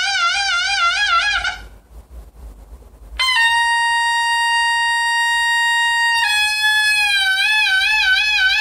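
Taepyeongso, the Korean double-reed shawm with a brass bell, playing a slow, loud melody. A note with wide vibrato breaks off about a second and a half in. After a short pause for breath comes a long, steady, higher note, which steps down slightly and takes on vibrato again a little after six seconds.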